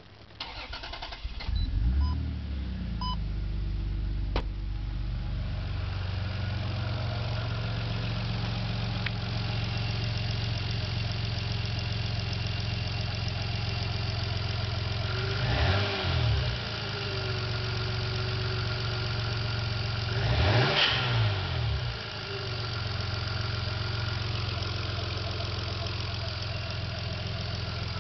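Toyota 2JZ-GTE turbocharged straight-six starting about a second in and settling to a steady idle, then revved briefly twice, around the middle and again about five seconds later. Somewhere in it is the unexplained noise the owner is chasing.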